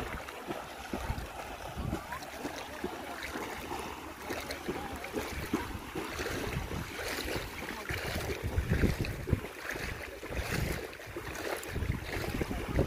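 Wind gusting on the microphone in irregular buffets, over a steady rushing noise.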